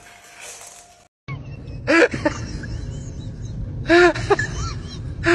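A small puppy yelping in short, high, rising-and-falling cries that come in bursts about every two seconds, over a steady low background rumble.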